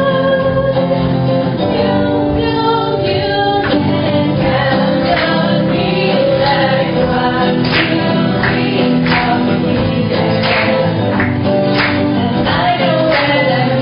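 A group of mixed voices singing together to a strummed acoustic guitar. From about four seconds in, a sharp beat comes in about every two-thirds of a second.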